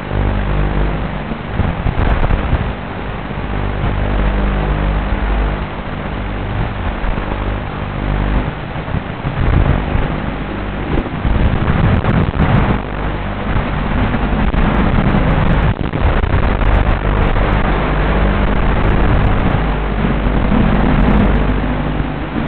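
FPV quadcopter's brushless motors and propellers heard from on board, a continuous whirring drone that rises and falls with the throttle, mixed with rushing air.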